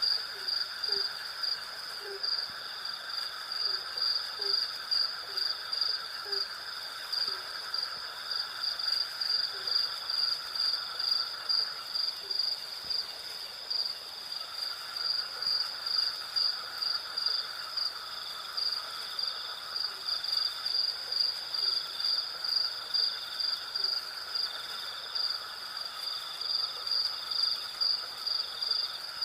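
Night chorus of crickets: a high, rapidly pulsing chirp that never stops, over a lower insect trill that fades out briefly midway. Short low calls repeat several times in the first few seconds, then only now and then.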